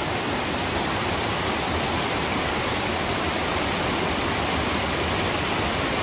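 Fast-flowing stream rushing over boulders in rapids: a steady, even rush of water.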